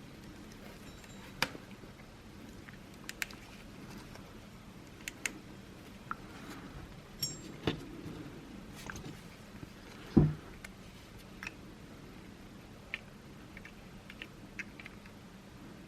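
Small plastic clicks and taps of a car remote key fob's casing being handled and fitted back together, with one louder knock about ten seconds in.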